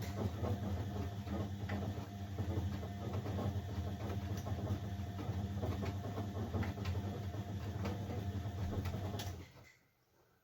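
Blomberg 240W washing machine running: a steady motor hum with faint scattered clicks and knocks, which stops abruptly near the end.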